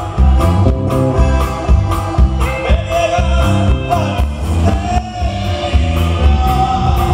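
Norteño band playing live: bajo sexto strumming, button accordion, saxophone, electric bass and drums keeping a steady beat, with a man singing over them.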